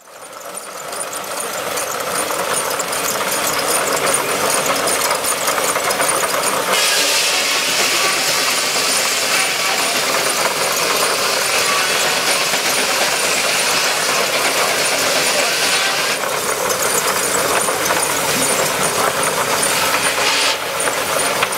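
Steam-powered circular sawmill running and cutting logs: a dense, steady mechanical noise that fades in over the first few seconds and grows harsher from about 7 to 16 seconds in.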